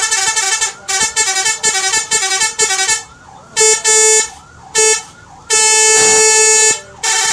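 Indonesian 'telolet' bus horn, a multi-tone air horn, playing a quick run of short melodic toots for about three seconds. Then come four separate blasts, the longest over a second.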